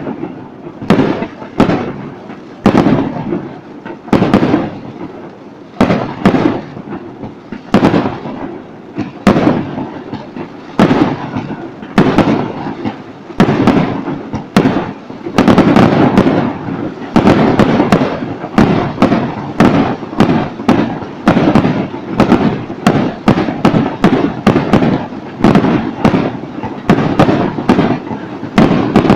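Aerial fireworks bursting in quick, irregular succession, sharp bangs each trailing off in a rumble, growing denser from about halfway through.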